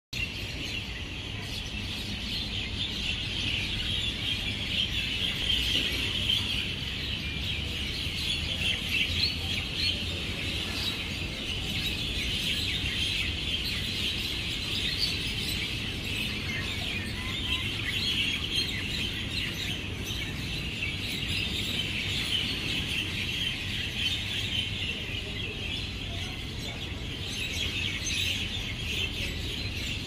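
A dense chorus of many birds chirping and chattering continuously, over a low steady rumble of city background.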